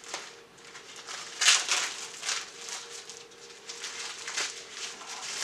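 Rustling, crinkling and light knocks from handling the packing and contents of a small red dot sight's carrying case, loudest about a second and a half in. A faint steady hum runs underneath.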